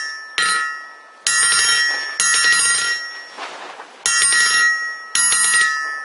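A cross peen hammer head forged from a jackhammer bit is dropped onto a steel anvil face and bounces, a rebound test. There are five sharp metal-on-metal strikes, each leaving a bell-like ring that dies away over about a second.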